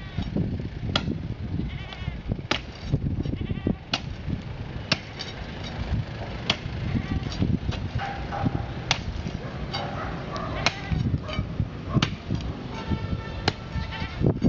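Concrete driveway slab being broken up: sharp, irregular strikes on the concrete about once a second, over a scraping, rumbling din of the demolition work.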